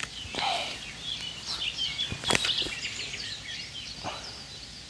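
Birds singing with quick, chirping phrases throughout, broken by a few sharp clicks, the loudest a little over two seconds in.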